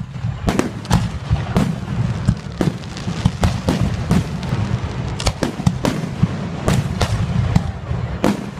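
Aerial fireworks shells bursting in quick, irregular succession: about twenty sharp bangs over a continuous low rumble.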